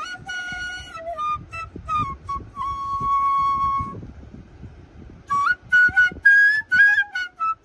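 Bengali bamboo flute (bansuri) played solo: a melody of short notes, then one long held note, a pause for breath about four seconds in, and a higher phrase near the end.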